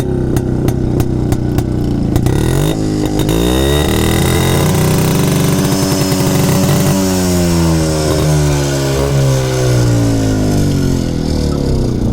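Jawa Yezdi motorcycle engine idling, then revved up about two and a half seconds in, held at high revs for a few seconds and let fall slowly back toward idle.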